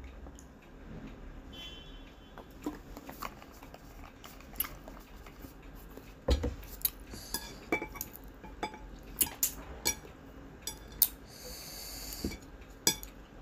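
Plastic chopsticks clicking and tapping against a porcelain plate: a string of sharp clicks and knocks, sparse at first and busier from about halfway through.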